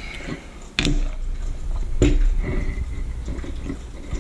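A plastic jar of rock-tumbler grit being handled and set down on a wooden table: a sharp click about a second in and a second knock about two seconds in, with small handling noises and a low rumble between them.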